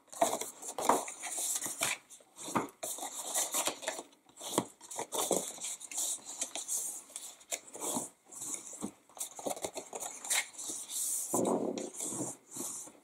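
Cardstock being folded along its score lines and the creases pressed down with a bone folder: irregular paper rustling, crinkling and scraping in short strokes.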